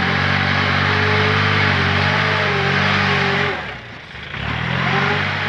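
Kubota tractor's diesel engine running under load as its front blade pushes soil, a steady drone. The sound drops away for about a second a little past halfway and comes back.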